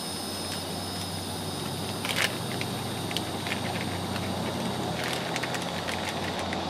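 Plastic soft-bait packet being handled and opened by hand, giving a few short crinkles, the sharpest about two seconds in, over a steady background rumble.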